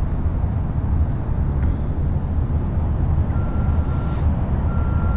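Steady low outdoor rumble with no speech. In the second half a thin, high, steady beep sounds twice, each lasting about half a second or more.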